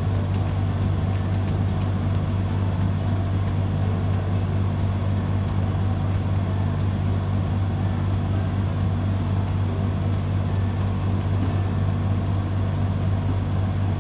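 Steady low hum with several even layers, unchanging throughout, with faint scattered light ticks above it.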